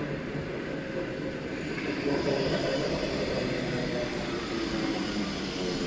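EP2D electric multiple unit rolling past close by: a steady rumble of wheels on the rails and running gear.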